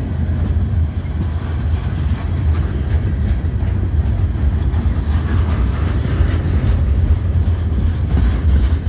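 Freight train flatcars loaded with large steel pipes rolling past, their steel wheels on the rails making a loud, steady low rumble with occasional faint clicks.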